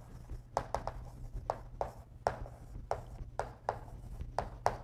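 Chalk tapping and scratching on a chalkboard as block letters are written: a quick, irregular series of short sharp ticks, about two to three a second.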